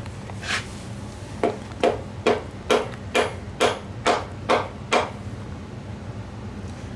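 The wooden end of a hammer handle taps a piston down its cylinder bore, seating the connecting rod onto the crankshaft rod journal. There is one light tap, then a steady run of about nine gentle taps, a little over two a second, that stops about five seconds in.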